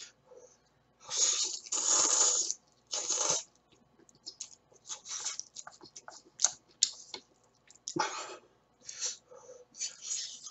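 A man slurping instant ramen noodles in several noisy pulls, the longest about a second in, with chewing and small clicking sounds in between.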